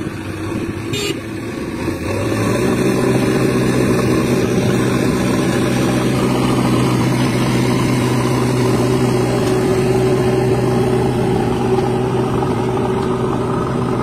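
Diesel engine of a backhoe loader running hard under load as its bucket pushes a heavily laden trailer stuck in mud. It steps up to full power about two seconds in and then holds a steady, even note.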